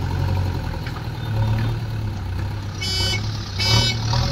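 JCB 3DX backhoe loader's diesel engine running steadily under load as the front bucket pushes soil. About three seconds in, a reversing alarm starts beeping in short regular pulses, the sign of a machine backing up.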